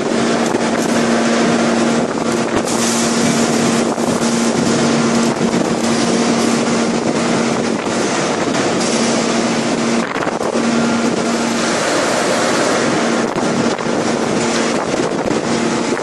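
5000-ton hydraulic forging press running while it forges a white-hot steel billet: a loud, steady rush of machine noise under a droning hum, which drops out for a moment about ten seconds in.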